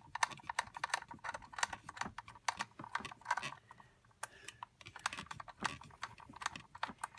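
Rapid, irregular light clicks and small rattles of hands working a 10 mm bolt into the fuel rail by hand, the metal and plastic of the rail and bolt clicking as it is turned and jostled.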